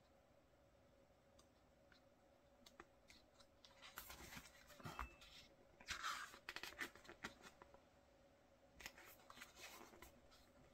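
Quiet rustling of paper as pages of a thick glossy photobook are turned by hand, in two spells: from about four seconds in, loudest around the middle, and again briefly near the end.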